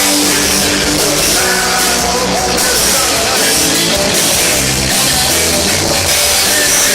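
Live punk rock band playing loud and distorted, with electric guitars and drum kit, recorded from within the crowd.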